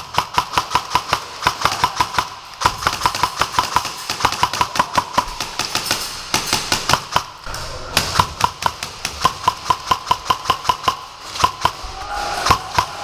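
Airsoft electric rifles firing rapid strings of shots, about seven a second, in several bursts broken by short pauses, each shot a sharp crack.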